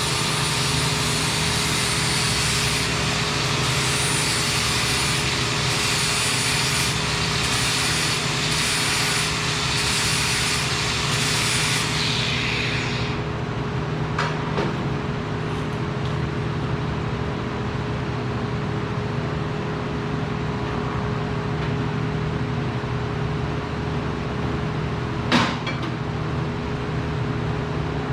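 Workshop noise: a steady mechanical hum with a loud hiss that stops abruptly about twelve seconds in, a faint click soon after, and one sharp knock near the end.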